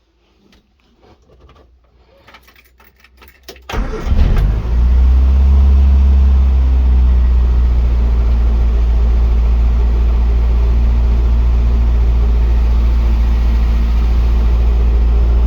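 Morris Minor's four-cylinder engine being started after its cylinder head and carburettor work. Faint cranking for a few seconds, then it catches about four seconds in and runs steadily, starting readily.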